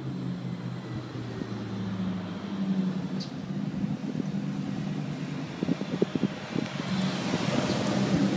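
1997 Camaro SS's LT1 V8 running through an SLP LoudMouth cat-back exhaust as the car drives up at low, steady speed, getting louder as it passes close by near the end.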